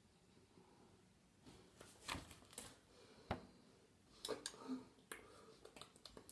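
Faint, scattered clicks and taps with short rustles, from hands striking each other and brushing against a sweater while gesturing; the first half-second or so is near silent before the taps begin.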